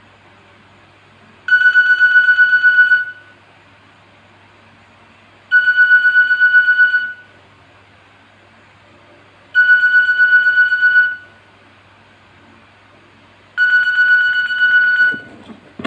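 Nokia 1202 mobile phone alarm beeping: bursts of rapid high-pitched beeps, each about a second and a half long, repeating every four seconds, four times.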